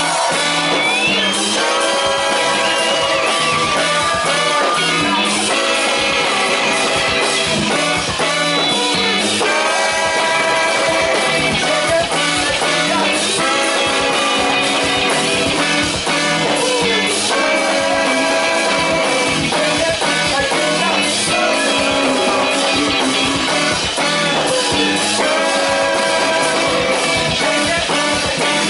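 Live soul band playing a song, with a horn section of trombone, baritone saxophone and trumpet over electric guitar, keyboard and drums, and a lead singer. The music runs on without a break, in repeating phrases of about two seconds.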